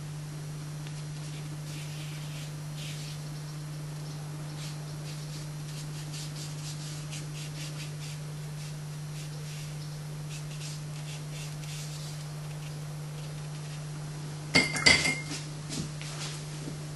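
A paintbrush clinking against a watercolour water jar: a quick cluster of sharp, ringing clinks about fifteen seconds in, then a few lighter taps. Faint scratchy brush strokes on paper come before it, over a steady low hum.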